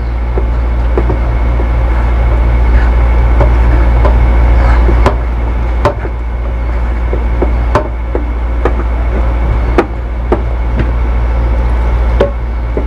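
Metal spoon stirring a thick flour batter in a stainless steel bowl, with scraping and sharp clinks of the spoon against the bowl every second or two. A steady low hum runs underneath throughout and is the loudest sound.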